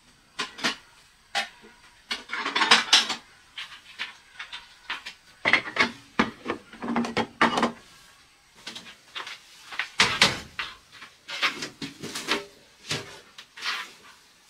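Irregular knocks, clacks and scraping of hard objects being handled, in uneven clusters with a few short pauses.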